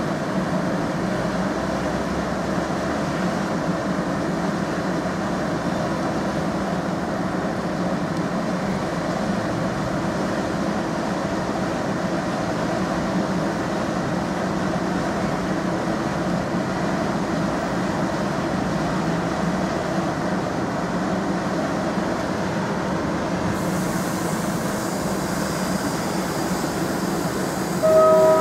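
Steady hum and rumble of a Mark 3 passenger train with a driving van trailer standing at the station platform. A brief, loud tone of several pitches sounds near the end.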